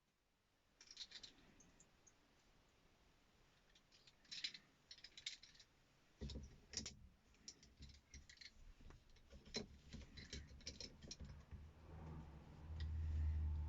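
Faint scattered clicks and scratches of small hard parts being handled. A low rumble joins about six seconds in and grows louder near the end.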